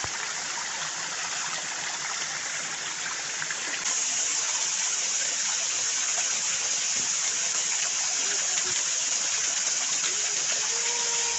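Water rushing steadily over rocks in a small bush stream or waterfall, a little louder from about four seconds in.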